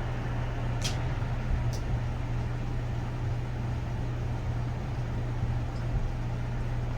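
Steady low hum with background noise, and two short faint clicks about one and two seconds in.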